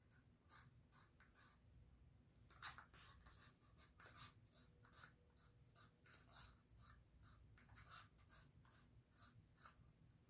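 Faint, repeated scraping of a wooden craft stick against the inside of a small paint cup, a few strokes a second, with one louder click a little under 3 seconds in: the last of the gold acrylic paint being scraped out of a nearly empty cup.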